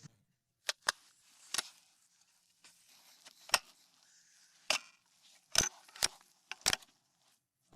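A .308 rifle's action being worked slowly to chamber a round as quietly as possible: a string of about eight sharp clicks at uneven intervals, with faint sliding noise between them.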